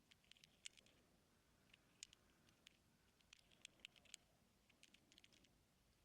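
Faint, irregular tiny clicks and scratches from an ear-cleaning tool working inside an ear canal, picked up by a close microphone.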